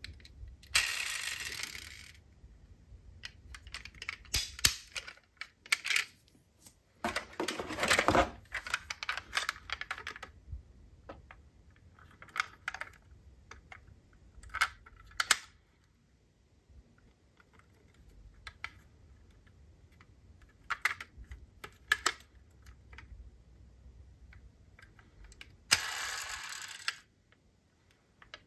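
Diecast metal model cars and their packaging being handled: scattered clicks and light metallic clinks, with short rustling stretches about a second in, around eight seconds in, and near the end.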